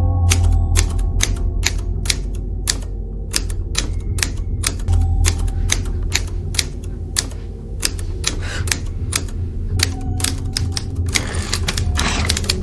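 Vintage manual typewriter typing: keys striking in a quick, uneven run of sharp clacks, about three or four a second, over a steady low hum.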